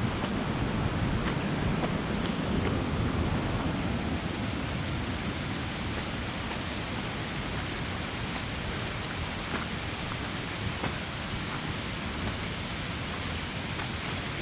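Steady rush of water falling at a waterfall, an even hiss with no breaks, a little louder in the first few seconds.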